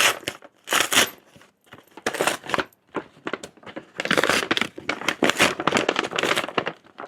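Packaging being torn open and crinkled by hand as a parcel is unboxed, in several irregular bursts of rustling and tearing with short pauses between them.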